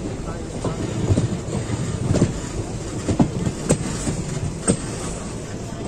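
Passenger train wheels running over the track with a steady rumble and a series of irregular sharp clanks as they pass over rail joints and crossovers.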